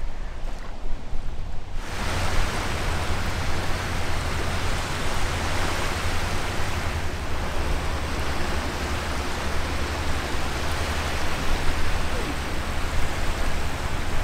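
Steady rushing noise of wind and choppy water, with wind rumbling on the microphone. It starts abruptly about two seconds in, after a quieter low rumble.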